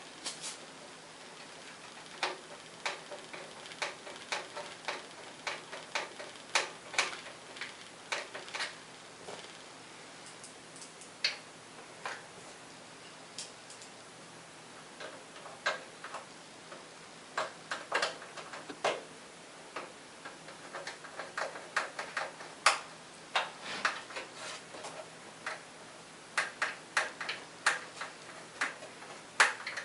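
Hand screwdriver driving the screws that mount a power supply into a computer case: small, irregular clicks and ticks of metal on metal, in clusters with short pauses.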